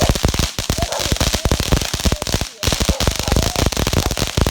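Consumer fireworks going off in a rapid, dense string of sharp bangs and crackles, with a brief lull about two and a half seconds in before the bangs pick up again.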